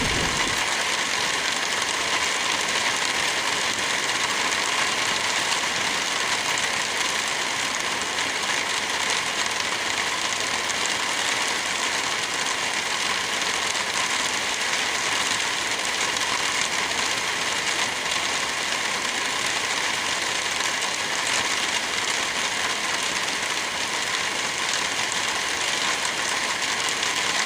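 Light rain falling steadily, an even hiss with no gusts or breaks; a low rumble of thunder dies away right at the start.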